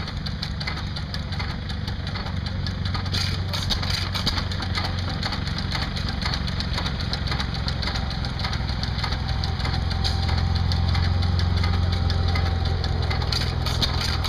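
A 5 HP Challenge hit-and-miss engine running unloaded: a steady low engine beat with a constant patter of small mechanical clicks. It gets somewhat louder from about ten seconds in.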